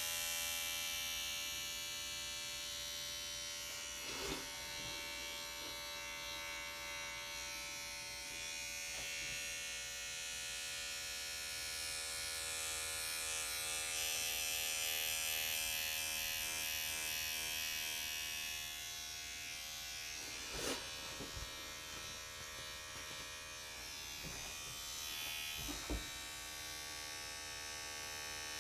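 Tattoo machine buzzing steadily, with a few short taps or knocks, the loudest about 21 and 26 seconds in.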